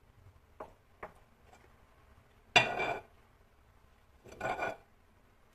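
A small cup knocking and scraping against a glass mixing bowl while it scoops up cake batter. There are two light taps about half a second apart, then two short, louder scrapes about two seconds apart, the first the loudest.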